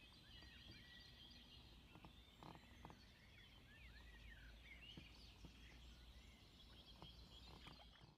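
Faint birdsong: many short chirps and rising-and-falling calls from several birds, over a low steady rumble, with a couple of faint knocks about two and a half seconds in.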